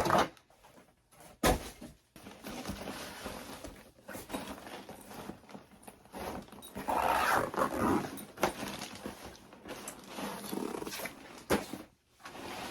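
Rustling and scraping of ring light packaging being handled and opened, with a sharp knock about a second and a half in and another click near the end.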